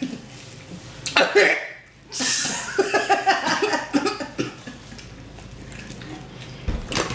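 A person coughing a few times on a bite of sausage they couldn't handle, followed by laughter. A sharp knock near the end.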